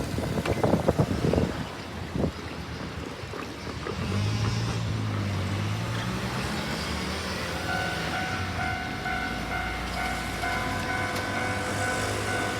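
A Keikyu electric train's last cars clatter over the rail joints for the first two seconds. A low, steady vehicle hum takes over from about four seconds, and a level-crossing warning bell starts ringing steadily at about eight seconds.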